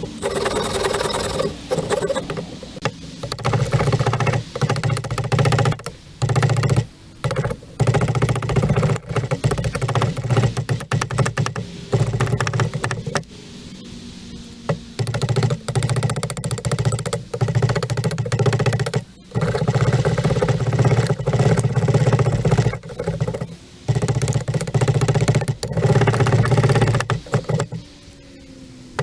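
Saw cutting relief kerfs across a split ash billet down to marked curves, so the waste can later be chopped out without the wood splitting along the grain. It rasps in runs of strokes broken by short pauses.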